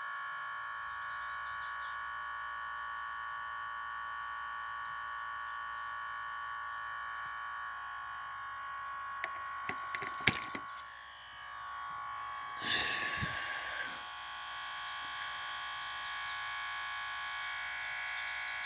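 Steady high whine from the load discharging the battery pack at about 8 amps. A few clicks come about ten seconds in, and a short rustle about thirteen seconds in.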